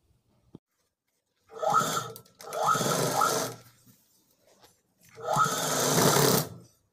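Sewing machine stitching a seam in three short runs, each starting with a rising whine as it gets up to speed, the last run the longest at about a second and a half.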